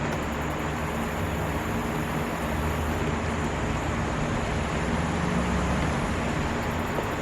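Steady machine hum over a constant hiss, even throughout with no knocks or clicks.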